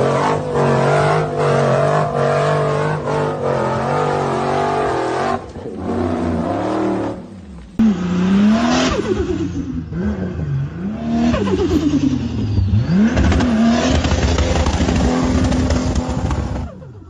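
Off-road 4x4 engines revving hard across a few short clips that cut abruptly from one to the next. In the later clip the revs rise and fall several times, then hold high near the end.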